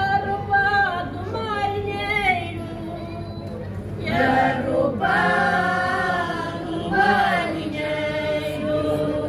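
Mixed choir singing Cante Alentejano a cappella, men's and women's voices holding long notes together. The singing drops back about three seconds in, then the full choir comes in again.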